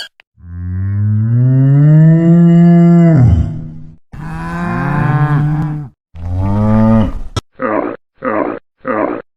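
A cow mooing three times, long low calls, the first the longest. Near the end it cuts to a run of short, evenly repeated grunting calls, about two a second.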